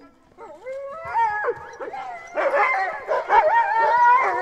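Several sled dogs howling together: overlapping rising and falling cries that start faintly about half a second in, build up, and are loudest and most crowded near the end.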